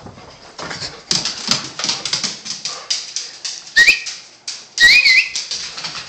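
A dog and a person moving quickly about a house with phone handling noise: a run of scuffs, taps and knocks. About four and five seconds in come short, high, squeaky calls that rise in pitch.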